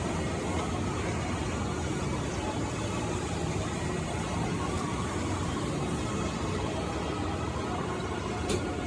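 Shopping cart rolling steadily over a hard polished mall floor, its wheels making a continuous rumbling noise. A brief sharp click sounds near the end.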